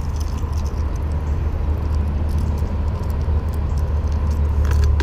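Wind buffeting the action-camera microphone: a steady, loud low rumble, with a few light clicks near the end.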